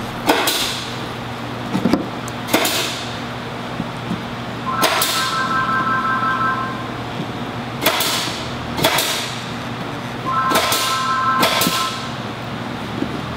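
Pliers and a soldering iron clicking and knocking against the metal terminals of an RF95 control box as its windings are unsoldered, about eight sharp clicks over a steady low hum. Twice a thin high tone sounds for about two seconds, starting with a click.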